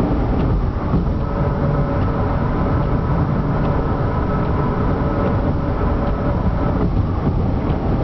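A steady, hollow humming drone over a heavy low rumble, with several faint held tones riding on it and a slight shift in the sound about seven seconds in. The uploader cannot identify the hum and wonders whether it is tyres rolling over grooved pavement.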